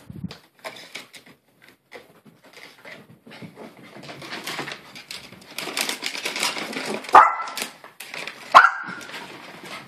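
Maltese poodle giving two sharp, high barks about a second and a half apart, near the end. Before them come scuffling and clicking noises.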